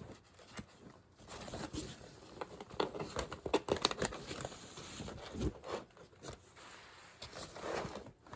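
Hands rummaging in a bag of cards: irregular rustling and crinkling with light clicks and scrapes, the sound of plastic and card stock being handled.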